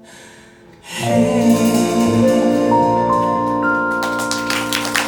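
Live band music: after a soft, quiet first second, a loud sustained closing chord comes in about a second in, its notes stacking up one after another. Audience clapping begins near the end.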